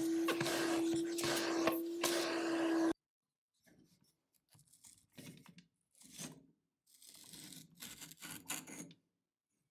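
A vacuum cleaner runs through a hose with a steady hum, sucking dust out of an old vacuum's metal nozzle, and cuts off suddenly about three seconds in. After that, an old, dusty cloth filter is pulled and torn out of the nozzle in short bursts of rustling and tearing.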